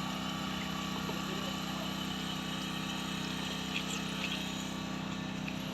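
An engine running steadily at a constant speed, an even hum that does not change, with faint voices in the background.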